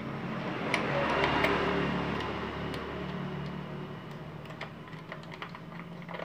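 Small plastic clicks and rustling as a wiring connector is pushed onto a motorcycle's voltage regulator-rectifier and its wires are handled, over a low steady hum.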